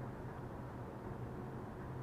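Steady low hum with faint hiss: room tone, with no distinct event.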